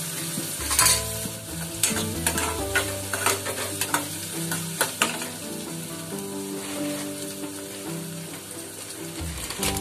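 Chopped onions and green chillies sizzling in oil in a metal kadhai as a steel spoon stirs them, with several sharp clinks of the spoon against the pan. The onions are being fried until they brown.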